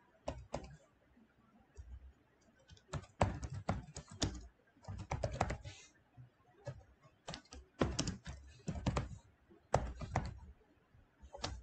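Typing on a computer keyboard: several quick runs of keystrokes with short pauses between them.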